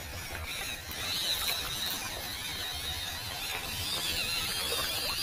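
Small electric motor and gearbox of an MN99S RC crawler whining at a high pitch that rises and falls with the throttle, over the rush of river water.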